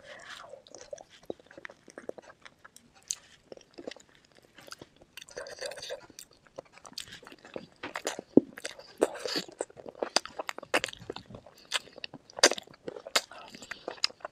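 Close-miked eating ASMR: chewing and biting through spicy chicken feet curry, Maggi noodles and green chilies, with many sharp, irregular crunches and wet mouth sounds.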